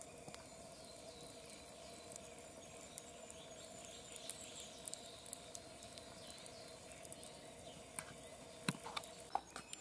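Wood campfire crackling quietly, with a few sharper pops.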